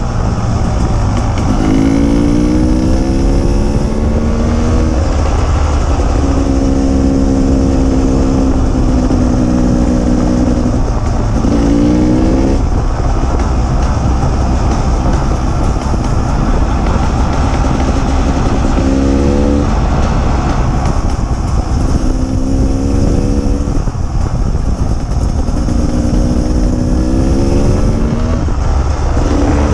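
Off-road motorcycle engine under way on a dirt trail. Its pitch climbs several times as it accelerates, with steadier stretches between, over heavy low wind rumble on the microphone.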